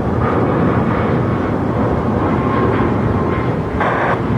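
Jet airliner engines running with a steady rumble and a faint whine. A brief burst of hiss comes near the end.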